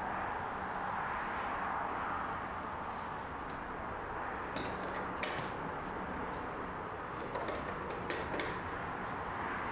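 Steady background hum of city ambience through an open window, with a few clicks and knocks about halfway and again about two thirds in as a casement window is moved by hand.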